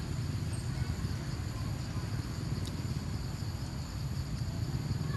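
Outdoor ambience: a steady low rumble with a faint, continuous high-pitched insect drone above it, and one faint click about halfway through.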